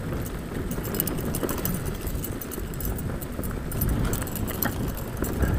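Mountain bike being ridden over a rough, sandy dirt track: a steady low rumble of tyres on the ground with frequent small rattling clicks and knocks from the bike.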